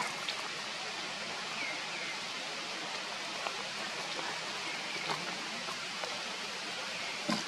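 Steady, even hiss of outdoor background noise, with a few faint clicks and a couple of short faint chirps.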